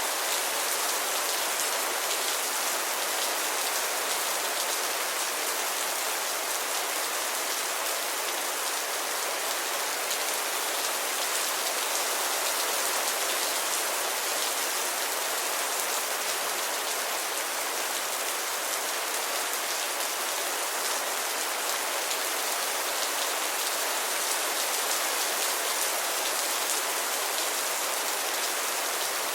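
Steady rainfall, an even hiss of drops falling on a surface, with fine individual drop ticks.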